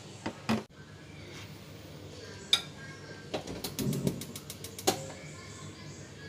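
Kitchen cookware handling: a few sharp clicks and knocks, then a quick even run of about ten clicks near the middle over a low rumble, as a wok is set up on the stove.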